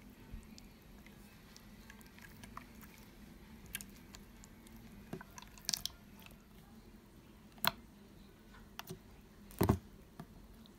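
Hands kneading and squishing slime: quiet sticky squelching broken by a few short pops and clicks, the loudest near the end.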